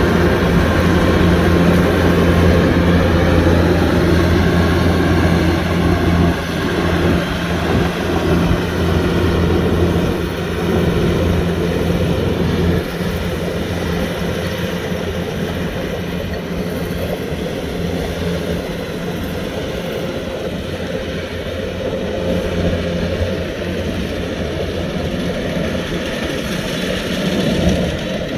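Kubota DC-105X combine harvester's diesel engine and machinery running steadily under load, loudest for the first six seconds and somewhat quieter after.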